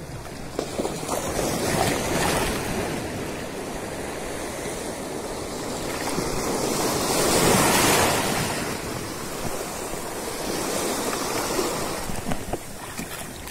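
Shallow sea surf washing and surging around the legs of people wading, swelling to its loudest about halfway through, with wind noise on the microphone.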